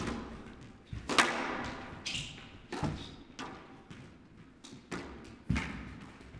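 Squash ball struck by rackets and hitting the court walls during a rally: a handful of sharp, irregularly spaced knocks, each with a short echo.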